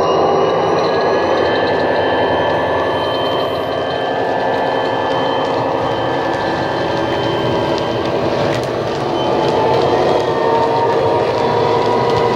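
Model Class 59 locomotive's DCC sound decoder playing a recorded EMD 645 two-stroke diesel engine running steadily through its small onboard speaker, with the model hopper wagons rolling on the track.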